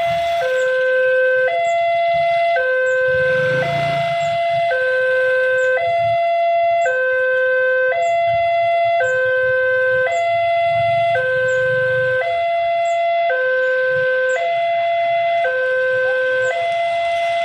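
Railway level crossing warning alarm sounding a two-tone hi-lo signal that switches pitch about once a second, the sign that a train is approaching the crossing.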